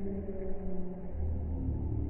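Slow background music with long held notes that shift gently in pitch, over a steady low rumble.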